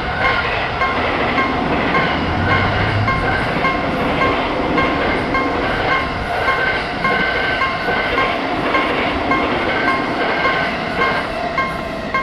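A train passing a Japanese level crossing, its running noise steady throughout, while the crossing's warning bell rings over it in an even, repeating pattern, a little under two strikes a second.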